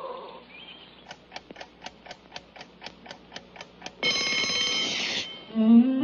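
Wind-up alarm clock ticking about four times a second, then its bell ringing loudly for about a second and cutting off abruptly: the alarm going off. Orchestral music fades out at the start and comes back in near the end.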